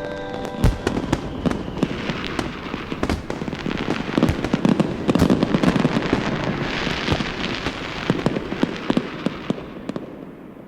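Fireworks sound effect: a dense run of crackles and pops over a rushing noise, swelling in the middle and fading out near the end.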